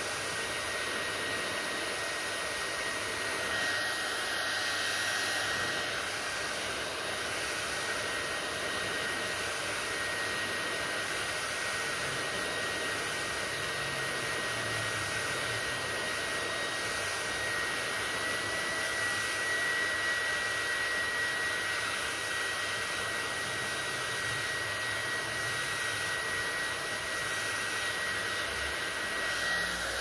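Handheld hair dryer blowing steadily: an even rush of air with a thin high whine running through it, which rises slightly in pitch a little past halfway.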